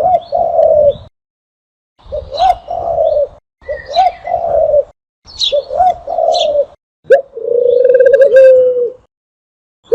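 Dove cooing in five separate phrases with silent gaps between them, the last phrase longer and drawn out. Thin, higher chirps sound over several of the coos.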